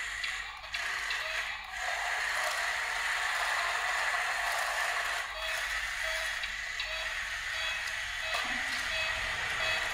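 Battery-powered bump-and-go toy cars playing tinny electronic music from their little speakers, over the steady whir of their small electric motors.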